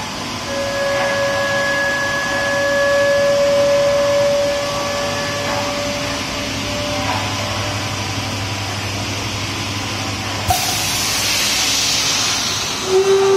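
Semi-automatic 5-gallon bottle blow-moulding machine running: a steady mechanical whir with faint steady whining tones, then a sudden loud hiss of compressed air venting about ten seconds in, lasting about two seconds.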